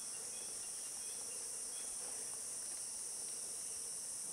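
Steady high-pitched chorus of insects, with a few faint short chirps in the first two seconds.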